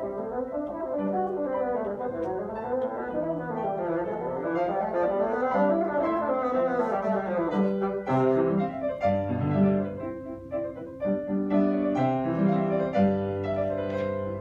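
Bassoon playing a classical solo piece with piano accompaniment: quick running passages that weave up and down, giving way about halfway through to longer held notes that dip into the bassoon's low register.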